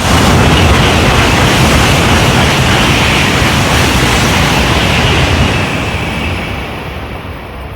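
Shinkansen bullet train passing through the station at high speed without stopping: a loud rush of wind and rail noise that hits suddenly, holds for about five seconds, then fades away.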